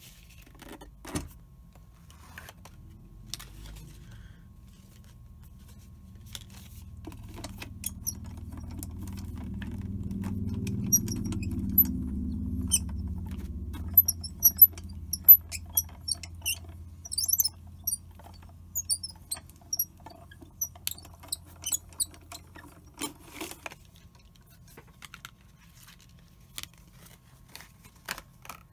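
Manual crank die-cutting machine being cranked, the plate sandwich rolling through the rollers with a low rumble that swells and then fades. Scattered clicks and taps of plates and dies being handled run throughout.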